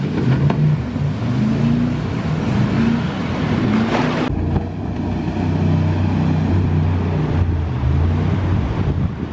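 An engine running, its low hum shifting in pitch a little, over a steady rushing noise.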